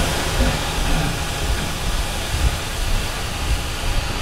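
Water gushing and splashing across a flooding tiled floor, a steady rushing hiss with irregular low thuds.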